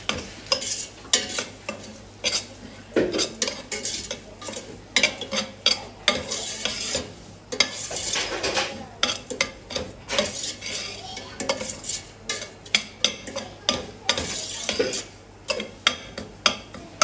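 A spoon stirring and scraping around a metal pot, clicking irregularly against its sides, while food fries in desi ghee with a light sizzle.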